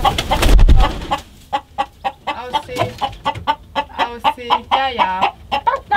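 Chickens clucking in quick, short calls, with one longer wavering squawk about five seconds in. A loud rustling thump fills the first second.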